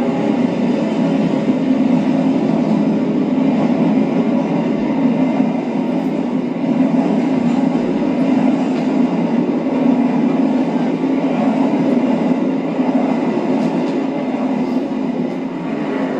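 Recorded train sound effect played over the theatre's speakers: a steady rumble of a passing train.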